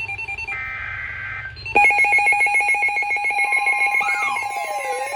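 Emergency Alert System tornado warning coming on: a burst of shrill digital SAME header tones that lasts about a second, then, about two seconds in, a loud electronic alert tone starts, a steady tone with a rapid pulse and, later, pitches sweeping up and down over it.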